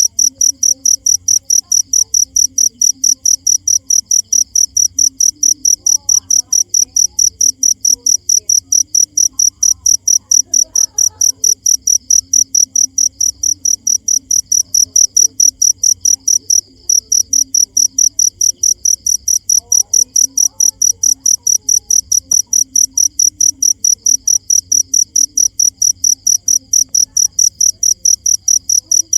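Cricket chirping in a fast, even rhythm of short high-pitched pulses, about four a second, with one brief pause a little past halfway.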